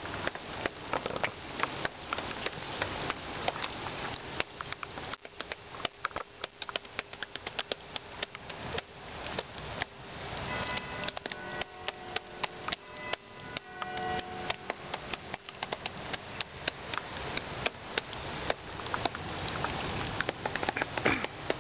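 Rain: a steady hiss of falling rain with many irregular drips and drops tapping close by.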